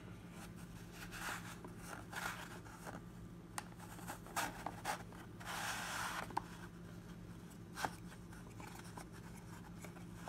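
Trading cards being lifted out of a box's card tray and handled, with faint scrapes and rubs of card on card and a few sharp clicks; the longest scrape comes about six seconds in. A low steady hum runs underneath.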